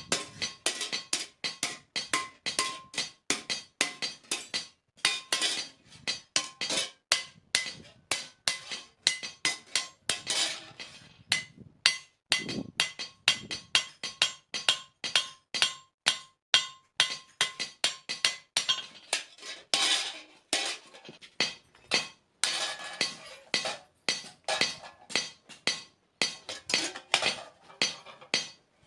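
Hammer striking steel on an anvil in a quick, steady rhythm of about three blows a second, each blow ringing, as a spade blade is forged. The hammering stops for a moment a few times.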